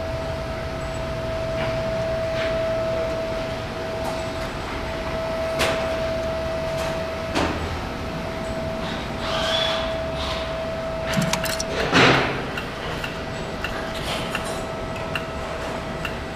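Steady shop background hum with a few sharp knocks, and a brief clatter about twelve seconds in; the motorcycle's engine is not running.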